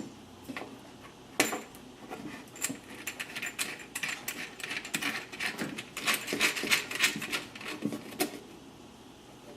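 Soldering station handpieces, cables and connectors being handled and hooked up: a run of small clicks, knocks and plastic-and-metal clatter. It is densest in the middle, with a sharper knock about a second and a half in and another near eight seconds.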